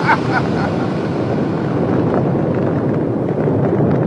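A large outdoor bonfire of brush burning: a steady, dense rushing noise, its upper hiss dulling after about a second and a half.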